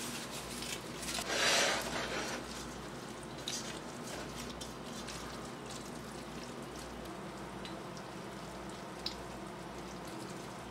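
Cheese-sauce powder shaken out of its paper packet into a pot of macaroni with a brief rustling hiss, then a silicone spatula stirring the wet macaroni and butter in a stainless steel pot: soft squishing and scraping with a few light clicks against the pot.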